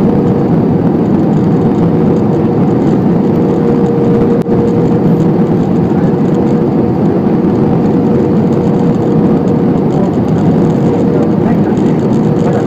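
Cabin noise inside an Airbus A320-family airliner descending to land: the steady rush of the jet engines and airflow, with a steady hum running through it. The sound dips briefly about four and a half seconds in.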